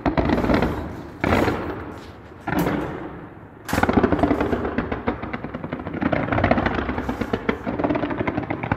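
Fireworks display: rapid, densely packed crackling and popping of many shells bursting, in surges that restart about every second and a quarter at first, then a continuous rattle.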